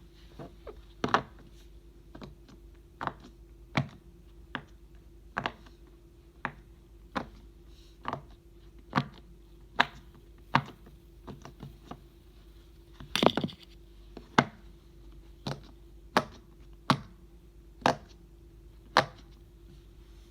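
Silicone pop-it fidget toy bubbles being pressed one at a time, giving sharp pops at an uneven pace, often about one a second, with a quick flurry of several pops about two-thirds of the way through.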